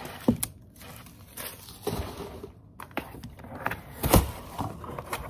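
Unpacking a gift box by hand: paper and ribbon rustling, with a few sharp knocks and taps as the scissors are put down and the box is handled. The loudest knock comes about four seconds in, as the lid is lifted.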